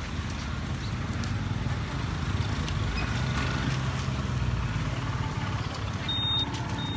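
Lump charcoal burning in a grill, crackling faintly with scattered small pops, over a steady low rumble.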